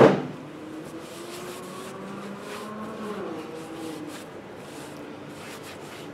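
A sharp clank as a brake rotor is set down on the workbench, then soft rubbing of greasy hands being wiped on a shop rag, over a faint hum that wavers in pitch.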